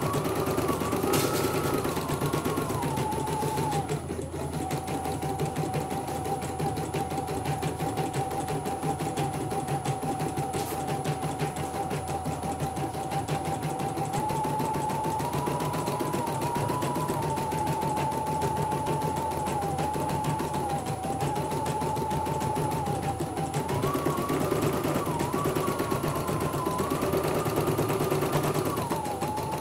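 CNY portable embroidery machine stitching out a test design: rapid, even needle strokes over a motor whine. The whine drops in pitch about four seconds in, stays lower through the middle, and rises again for a few seconds near the end as the stitching speed changes.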